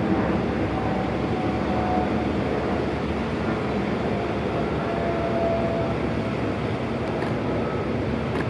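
A high-speed catamaran ferry's MTU diesel engines running hard as it manoeuvres away from the pier: a steady deep rumble with the churn of its wake, and faint whining tones that drift slightly in pitch.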